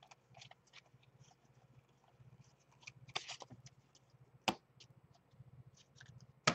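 Baseball trading cards being handled: faint rustling and light clicks as cards slide against each other in the hands, with one sharp tap about halfway through, the loudest sound, as cards meet the table.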